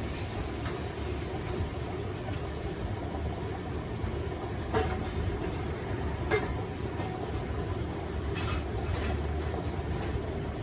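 Beko WTK104121A front-loading washing machine running, its drum turning with a steady low rumble. A few short sharp clinks sound about halfway through and again later.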